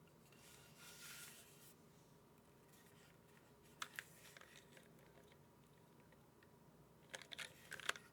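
A few scattered key presses on a mechanical keyboard with Cherry MX2A Black linear switches and GMK keycaps: a pair of clacks about four seconds in and a quick cluster of clacks near the end, after a soft rustle about a second in.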